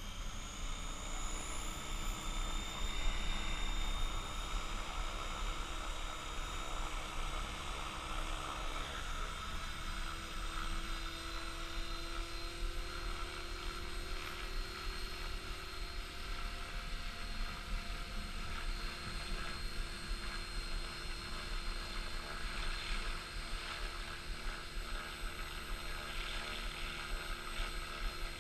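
Unmanned model helicopter's rotor and motor running: a steady whine that rises in pitch over the first two seconds, then holds as it flies, with a steady low rumble underneath.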